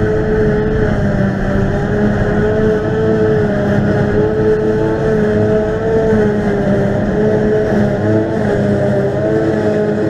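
Claas Jaguar 840 self-propelled forage harvester at work picking up a grass swath for silage, running steadily with a high whine that wavers slightly in pitch. Under it is the drone of the John Deere tractor pulling the silage trailer alongside.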